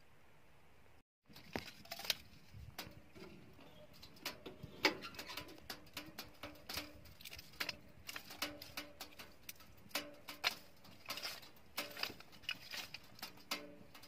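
Irregular crackling and clicking of dry wood: kindling sticks being handled and snapped beside a small wood-burning tent stove with a fire going. A faint steady hiss cuts off about a second in, before the crackling starts.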